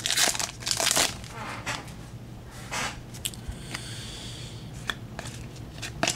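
Trading cards and their pack wrapper being handled by hand, with a few loud crinkling, rustling bursts in the first second or so, then quieter sliding and small clicks as the cards are shuffled through.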